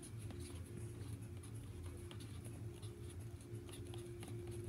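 Faint scratching strokes of a felt-tip marker drawing on paper, over a steady low hum.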